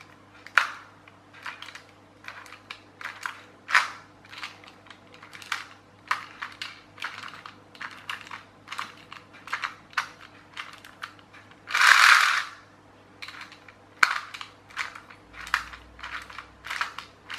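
Small plastic gears and a wheel of a clockwork toy tractor's gearbox clicking irregularly as they are handled and turned by hand, with a brief louder rasping rattle about twelve seconds in.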